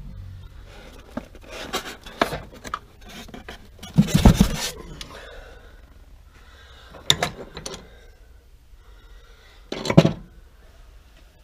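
Handling noises: irregular rubbing and scraping, with sharp knocks and clinks about four, seven and ten seconds in.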